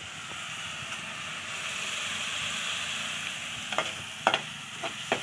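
Spice masala frying in hot oil in a wok, sizzling steadily as chilli powder goes in. Near the end a metal ladle stirring it clinks against the pan a few times.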